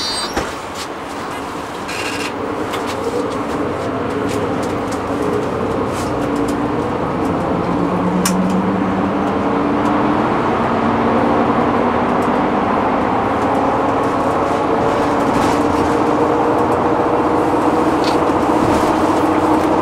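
City bus running, heard from inside the passenger cabin: the engine and drivetrain whine slowly rises in pitch and the road noise grows louder as the bus gathers speed.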